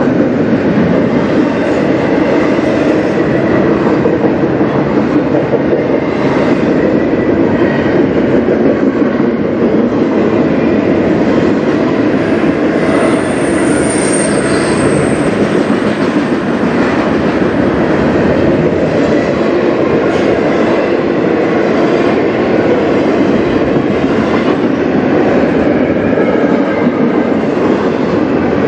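Double-stack intermodal freight train's well cars rolling past, a steady loud rumble and clatter of wheels on rail. A brief high wheel squeal sounds about halfway through.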